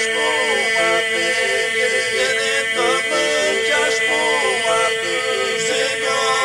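Southern Albanian polyphonic folk singing by a men's group without instruments: a lead voice sings an ornamented melody that glides up and down over a steady drone held by the other singers.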